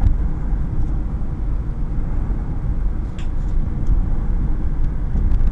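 Steady low rumble of a car driving along a street, heard from inside the cabin: engine and tyre noise, with a few faint ticks.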